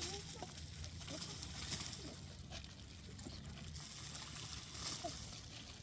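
Faint, steady trickle of running water, heard outdoors.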